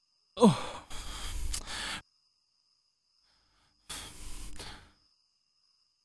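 A man's frustrated sigh: a short falling groan about half a second in that trails into a long breathy exhale. A second, shorter exhale comes about four seconds in.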